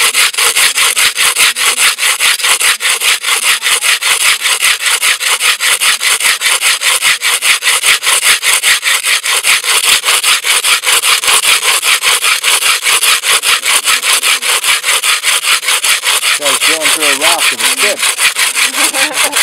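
Sand grinding between a spinning wooden hand-drill shaft and stone as the shaft bores a hole: a steady, gritty scraping that pulses several times a second with each back-and-forth spin of the shaft.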